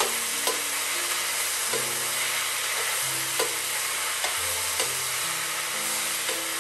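Vegetables sizzling in oil in an electric wok while being stirred with a metal spoon, which knocks against the pan several times at irregular intervals.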